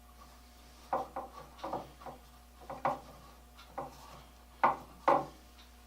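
Irregular wooden knocks and clatter as the new bamboo vise handle is handled and bumped against wood, about nine sharp taps, the two loudest near the end.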